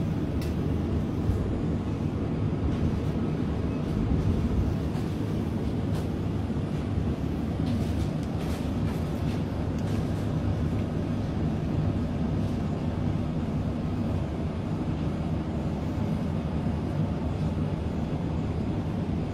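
Steady low hum and rumble of supermarket background noise, with a few faint clicks.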